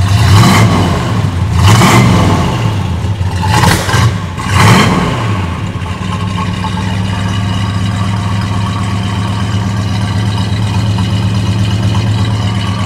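1971 Dodge Super Bee's big-block V8, freshly started cold, blipped up four times in quick succession in the first five seconds, each rev rising and dropping back. It then settles into a steady idle with a nice purr from the exhaust.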